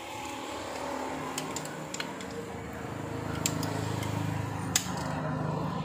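A screwdriver clicking and scraping against the metal and plastic parts of a handheld power tool, with several sharp clicks, over a low steady hum that grows louder about halfway through.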